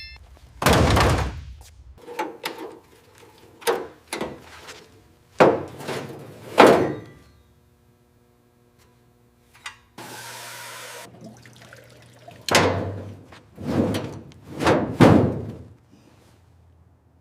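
Heavy thuds and knocks at irregular intervals, about a dozen in all. One strike near the middle leaves a ringing tone that dies away over a few seconds. A short hiss comes about ten seconds in.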